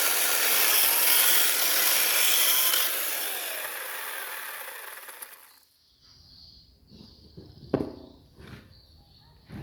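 Chainsaw cutting into wood, loud for the first few seconds, then dying away and stopping a little after halfway. Afterwards a faint steady high tone and a few sharp knocks are left.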